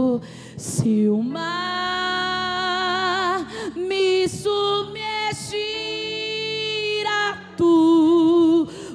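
A slow worship song sung by a woman's voice, in long held notes with vibrato, broken by short breaths.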